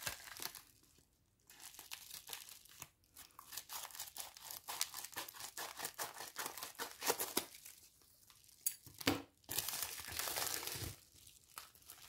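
Plastic mailer bag crinkling and rustling as it is cut open with scissors and handled, a dense run of irregular crackles with brief pauses.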